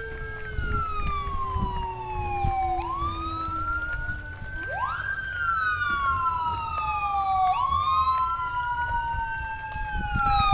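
Two police sirens wailing out of step. Each rises and then falls slowly in a cycle of about four to five seconds. A low rumble sits underneath.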